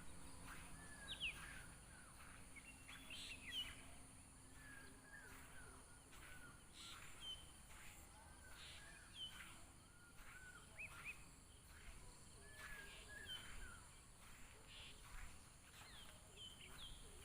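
Faint birdsong: many short chirps and brief whistles from small birds, coming every second or so, over a steady high hiss.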